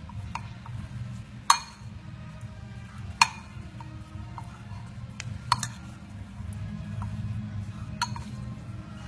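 Metal spoon clinking against a ceramic bowl while stirring shredded sweet potato in batter: several sharp clinks, a second or two apart.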